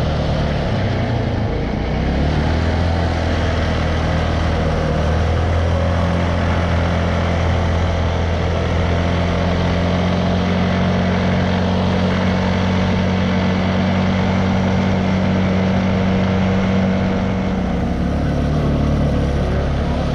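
TGB Target 550 quad bike's engine running under way at a steady pitch, easing off briefly about a second in and again near the end, then starting to pick up.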